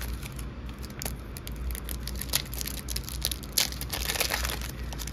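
Foil Pokémon TCG mini booster pack wrappers crinkling and crackling as they are handled and torn open, with a dense run of crackles about four seconds in.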